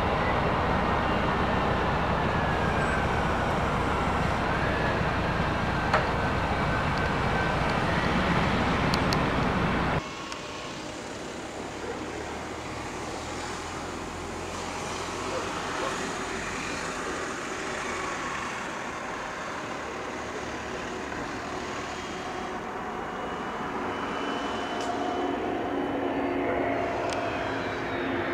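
Steady airport apron noise for the first ten seconds. It drops off suddenly, and a quieter, distant jet's engine noise slowly grows, with a steady whine coming in over the last few seconds as a Cessna Citation M2 business jet rolls along the runway after landing.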